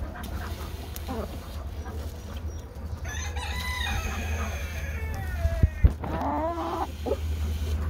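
Rooster crowing once about three seconds in, a long call of roughly two seconds that falls in pitch at the end, followed by shorter clucking calls from the chickens. Two sharp knocks come just after the crow.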